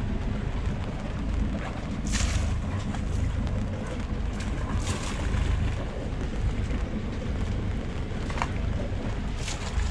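A sailboat under way through rough swell: wind buffeting the microphone over a steady low rumble, with water rushing past the hull in a few louder surges.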